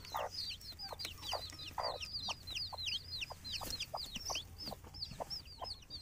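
Newly hatched chicks peeping continuously, each peep a short, high, falling note, several a second.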